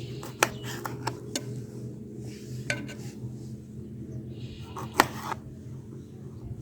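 Knife knocking on a cutting board as lemons are cut into halves: a few sharp, irregular knocks, the loudest about five seconds in, over a steady low hum.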